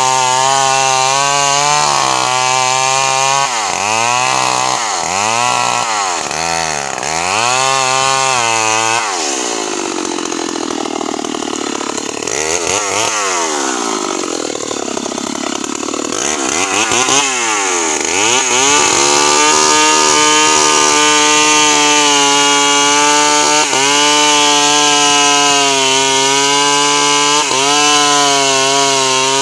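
Stihl MS 381 two-stroke chainsaw bucking a kapok log. It runs at a steady high pitch in the cut, then is revved up and down over and over for about fifteen seconds while lifted out of the wood. It then goes back into the log at a steady high pitch for the last ten seconds.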